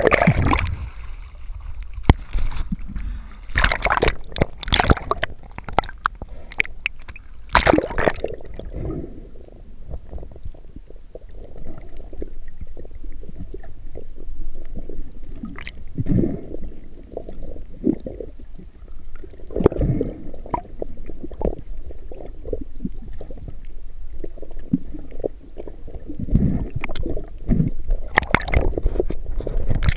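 Underwater water noise heard through a camera housing: uneven swishing and gurgling with a low rumble. Scattered sharp clicks and knocks come thickest in the first eight seconds and again near the end.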